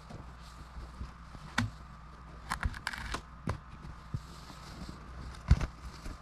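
Scattered knocks and scrapes as a heavy log is worked with a wooden leverage pole, the loudest knock coming about five and a half seconds in, over a steady low rumble.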